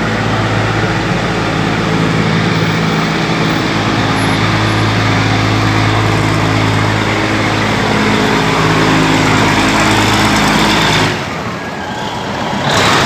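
RHN diesel railcar running past at close range: a steady diesel engine drone with the rumble of its wheels on the rails. About eleven seconds in the engine drone drops away briefly, then loud running noise returns as the following cars pass.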